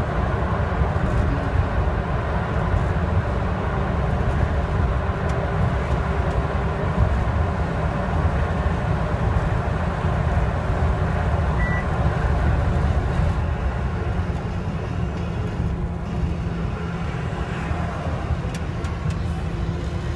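Cab interior of a 2008 Mercedes-Benz Axor truck driving at steady speed through a road tunnel: a continuous deep drone of the diesel engine and road noise, easing off slightly near the end.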